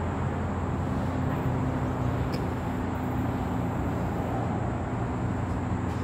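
Steady low outdoor rumble with a faint hum, and one light click about two seconds in.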